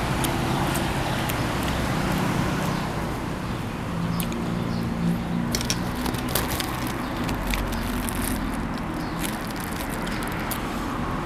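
Steady outdoor background noise with a vehicle engine running, and scattered light clicks and taps from about halfway through.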